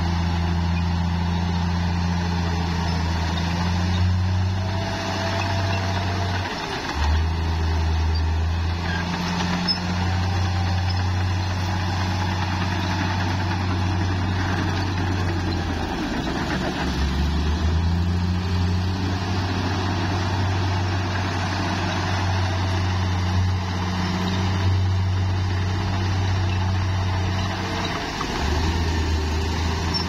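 Bulldozer's diesel engine running steadily under work, a deep continuous drone whose note dips and shifts briefly three times: about a fifth of the way in, at the middle and near the end.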